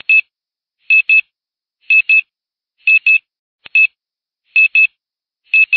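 Electronic beeping: short, high, steady-pitched beeps, mostly in quick pairs, repeating about once a second. About three and a half seconds in, a click comes just before a single beep.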